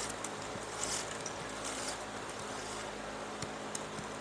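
A strand of medium chair cane pulled through the seat holes during hand caning: a few short swishes in the first two seconds and a couple of light ticks later on, over a steady low hum.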